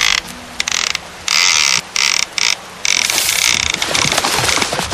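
Rasping mechanical ratchet buzz that cuts in and out several times in quick bursts during the first three seconds, then runs on more steadily.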